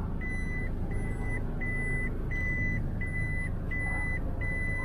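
A Toyota Fortuner's in-cabin reverse-gear warning chime beeping steadily, one high beep about every 0.7 s, with the engine's low hum underneath while the car backs up.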